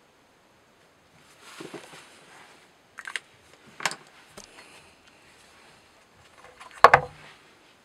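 Small hard clicks and knocks from hands handling the knife-edge test rig: a brief scrape, two light sharp clicks, then a louder clatter of knocks near the end.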